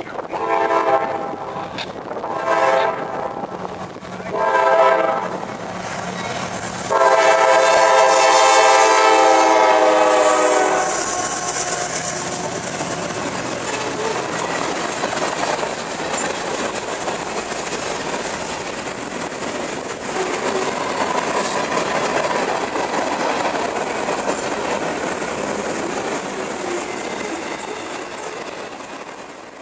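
Freight locomotive's air horn sounding a crossing warning as the train approaches: three blasts of about a second each, then one long blast of about three and a half seconds. The train then rolls past close by, its wheels running on the rails as the freight cars go by, until the sound drops away near the end.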